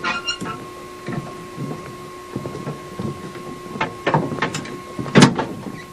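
Footsteps on a wooden dock: irregular knocks and thumps, the loudest about five seconds in, over a steady faint hum.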